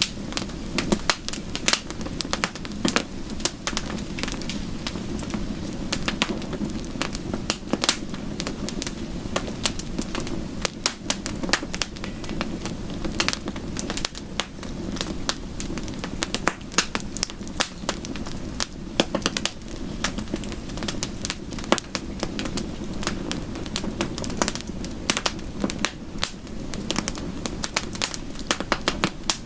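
Wood fire crackling, with frequent irregular sharp pops and snaps over a steady low rushing, mixed with soft rain.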